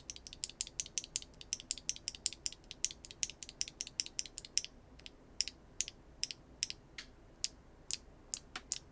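Keygeek B1 linear mechanical keyboard switches, with nylon-fiberglass bottom housings and POM stems, pressed over and over with a sharp, high clack. A fast run of keystrokes fills the first half, then slower single presses about two a second follow. The clack is described as extremely clacky.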